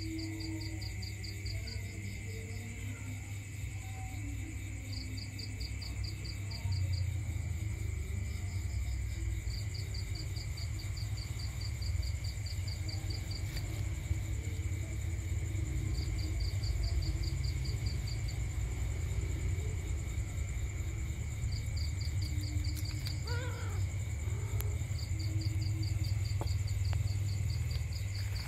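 Night insects: crickets chirping in short pulsed trills every few seconds over a steady high insect drone, with a low rumble underneath that grows louder about seven seconds in.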